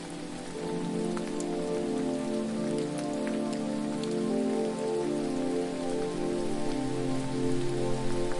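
Steady hiss of falling water with a few faint sharp drip-like ticks, under a layer of sustained low tones that shift every second or so, like an ambient music pad.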